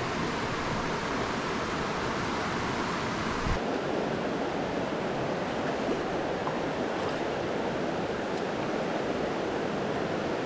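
Steady rushing of a mountain creek flowing over rocky riffles, with a brief knock about three and a half seconds in.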